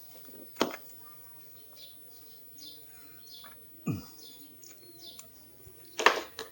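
Plastic clicks and knocks of a high-flow air filter being pressed into a Honda CRF300L's airbox and its clips squeezed home: three short knocks, the loudest near the end.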